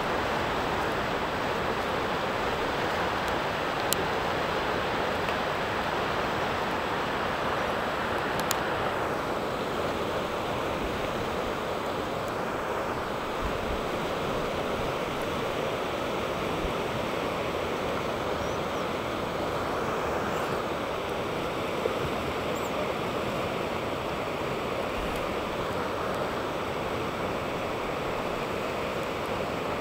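Steady rushing of whitewater from a small river rapid, with a couple of faint clicks early on the way.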